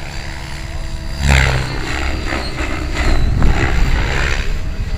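Compass 7HV, a 700-size electric RC helicopter, in flight: a steady drone from its rotor and motor, turning louder and rougher about a second in and swelling and easing as it manoeuvres.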